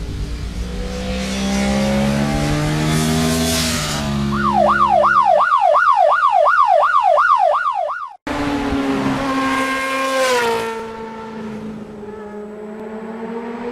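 Vehicle engines with shifting pitch, then a siren warbling rapidly up and down, nearly three times a second, for about four seconds. The sound cuts off abruptly and comes back as an engine note that falls in pitch.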